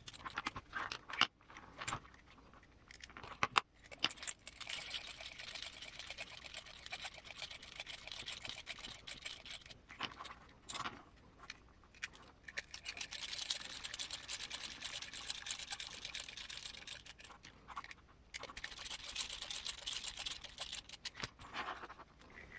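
Hand assembly of an RC car's small plastic transmission: a few sharp clicks and knocks as parts are fitted, then three long spells of fine, rapid clicking as small machine screws are driven into the transmission case.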